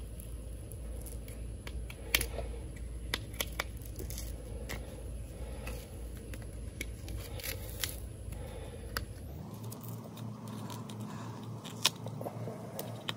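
Small, irregular scrapes and clicks of a thin tool picking old double-sided adhesive off the back of a motorcycle air-cleaner badge, with a sharper click a little after two seconds and another near the end.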